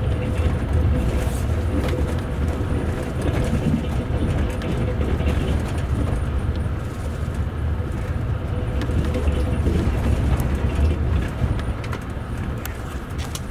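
Steady rumble of a moving passenger train heard inside the upper deck of a double-decker coach, with a faint steady hum that fades out about ten seconds in.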